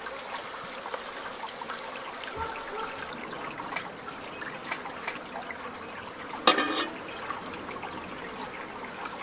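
Shallow stream trickling over rocks, with small clicks of metal tongs against a pan and plate as pasta is lifted across. One louder clatter about two-thirds of the way through.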